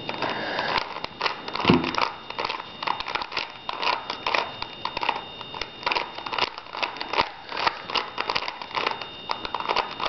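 A plastic 3x3 Rubik's cube being turned quickly by hand, its layers clicking and rattling in rapid, irregular strokes.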